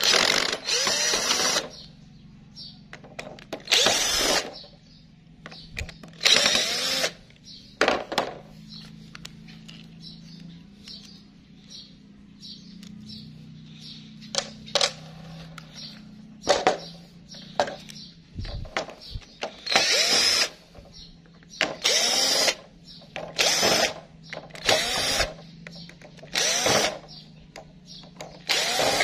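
Bosch cordless drill/driver run in a dozen or so short bursts, backing out the housing screws of a power drill; within each burst the motor's whine rises as it spins up and falls as it stops.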